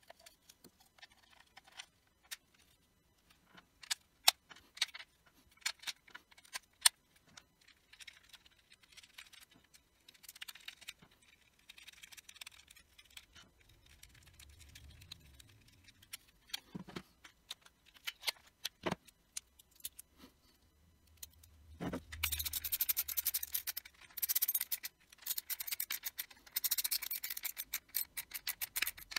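Hard plastic parts of a 3D-printed PLA wheel and tire handled and fitted together: scattered clicks and knocks, then, about two-thirds through, a long run of rapid clicking as the hub bolts are driven in with a small hand driver bit.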